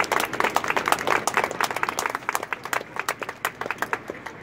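Crowd of campers applauding. The clapping is dense at first, then thins out to scattered claps and stops near the end.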